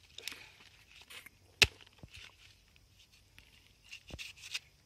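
Machete chopping into a hard, overripe palmyra palm fruit: one sharp chop about one and a half seconds in and a fainter one about four seconds in, with small knocks and rustles between. The old fruit's husk is very tough and hard to cut.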